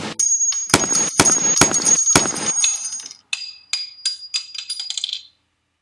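A quick string of about five gunshots in the first two and a half seconds. Then a run of light metallic pings and clinks with a thin high ring, dying away and cutting off a little after five seconds.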